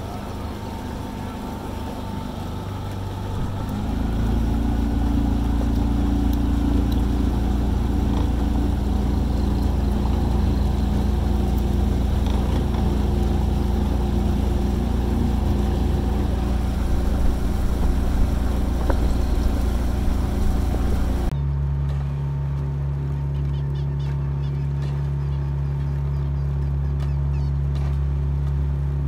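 Motorboat engine running steadily, picking up speed about four seconds in. About two thirds of the way through it cuts to a different, slightly quieter steady engine hum.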